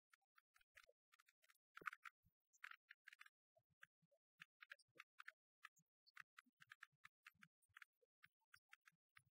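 Near silence with faint, irregular clicks and crackles scattered throughout, like the surface noise of an old film soundtrack.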